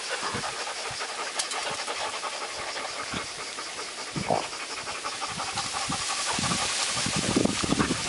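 A dog panting rapidly close to the microphone. A low rumbling noise builds over the last couple of seconds.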